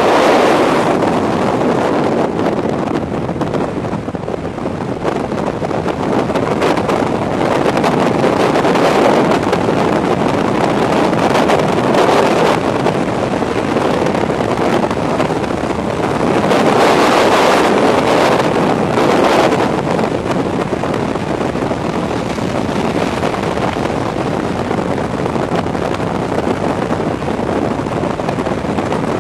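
Loud wind rushing over the microphone, a rough steady roar that swells louder around a third of the way in and again past the middle.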